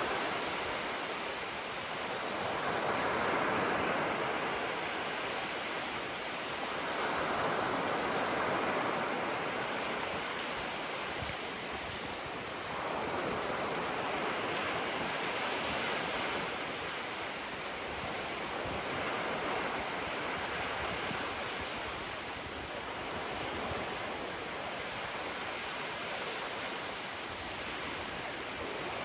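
Small sea waves breaking gently on the shore, the wash swelling and easing every few seconds.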